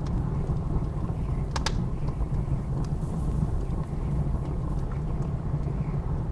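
Wood fire crackling, with a couple of sharp pops about a second and a half in and fainter crackles after, over a steady low rumble of blizzard wind.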